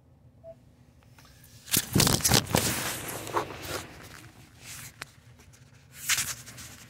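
Handling noise from a handheld camera being fumbled: fingers rubbing and knocking on the body close to the microphone. It comes as loud rustling scrapes and bumps from about two seconds in, then a shorter burst near the end.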